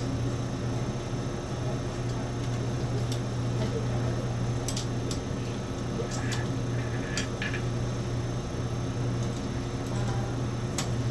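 Scattered light clicks of a ball-end hex driver working the screws that hold the upper heated plate to the rheometer head, over a steady low hum of lab equipment.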